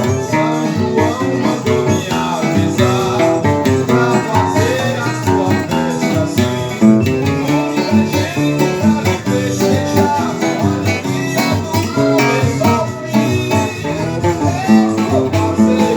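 Instrumental music on plucked strings, led by a seven-string steel-string acoustic guitar playing a lively tune in quick runs of notes.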